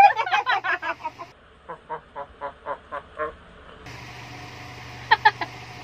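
Women laughing hard in rapid bursts of about eight a second, then a softer run of laughs about four a second, and a short laugh near the end.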